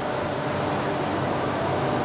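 Steady mechanical hum and hiss of stone-workshop machinery running, with a few faint steady whining tones through it.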